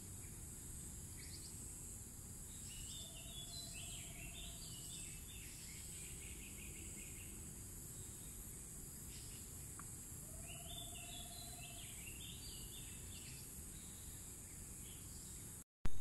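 Tropical forest ambience: a steady high-pitched insect drone, with a songbird singing two short phrases of quick stepped notes, about three seconds in and again about ten seconds in.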